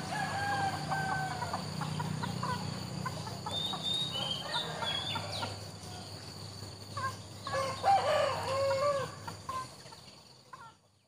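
Chickens clucking and a rooster crowing, with the loudest calls about eight seconds in, over a steady low hum, fading out near the end.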